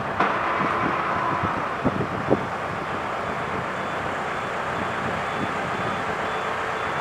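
Steady wind noise on the microphone, with a few short knocks in the first couple of seconds.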